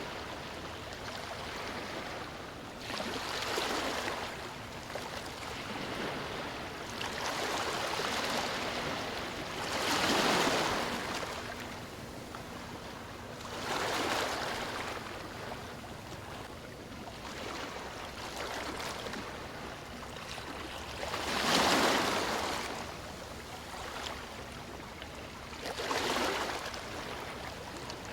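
Sea waves washing onto a beach: a steady hiss of surf with a wave breaking and rushing in every four or so seconds, the loudest about two-thirds of the way through.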